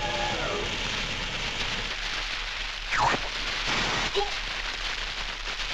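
Cartoon sound effect of a steady hissing spray of water and steam on a red-hot cat, with a short falling squeal about three seconds in.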